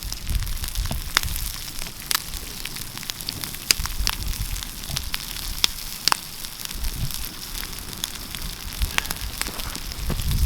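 Campfire crackling with irregular sharp pops, with eggs sizzling in a pan over it.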